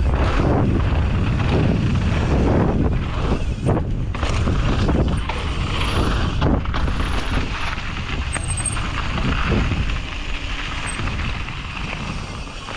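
Mountain bike ridden downhill on a dirt trail: continuous tyre rumble with frequent knocks and rattles from the bike over rough ground, and wind buffeting the microphone. The noise eases somewhat near the end.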